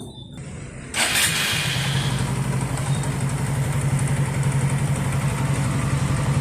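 Hero Super Splendor's single-cylinder four-stroke engine, freshly rebuilt with its timing newly set, starts about a second in and settles into a steady idle.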